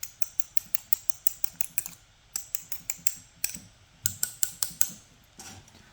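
Quick runs of light, sharp clicks and taps from the brass padlock being handled, in three bursts of several clicks a second, as the gritty lock sheds bronze flakes.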